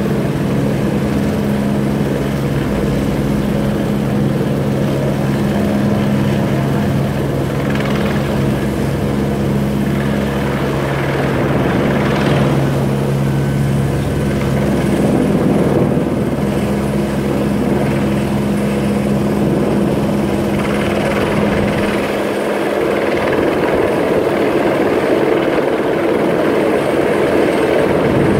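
Steady engine drone with a low hum that drops away about three-quarters of the way through.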